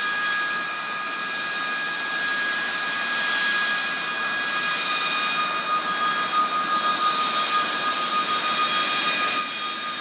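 B-52 bomber's eight turbofan engines whining steadily as it taxis past: several high, steady tones over a wide rush of jet noise.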